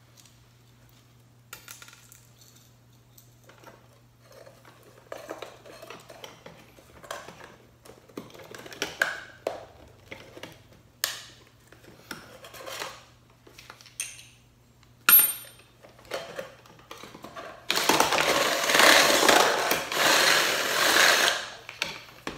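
Metal parts being handled with scattered clicks, scrapes and a few sharp metallic clinks, then, about 18 seconds in, a power drill runs for about four seconds, widening the hole in the metal camera body for the lamp's switch.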